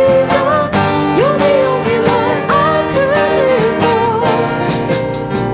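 Worship song: a sung melody over instrumental accompaniment, the voice dropping out near the end while the instruments continue.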